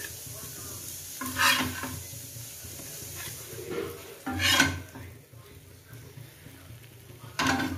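A metal spatula scrapes and clatters three times, about three seconds apart, as fried mackerel pieces are lifted from the pan and set down on a steel plate. Under it the frying oil sizzles faintly, fading after the second scrape.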